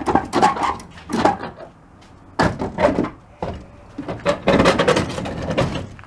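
An emptied old refrigerator cabinet being tipped over and handled on a concrete path: a series of metal knocks, bumps and scrapes, with a sudden loud bump about two and a half seconds in and a longer stretch of scraping and knocking after about four seconds.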